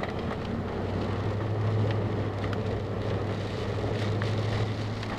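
Car driving, with a steady low hum of engine and road noise.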